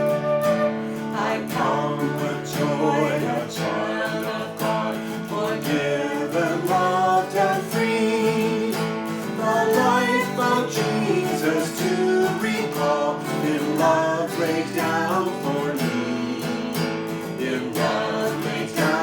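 Hymn accompaniment on strummed acoustic guitar, with a melody line over the chords.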